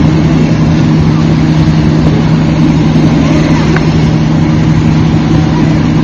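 A large engine running steadily under a constant low hum, with a noisy rumble over it.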